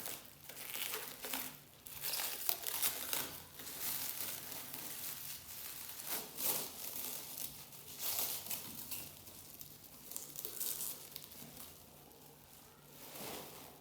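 Packing material being handled and unwrapped: irregular crinkling and rustling, quieter for a couple of seconds near the end.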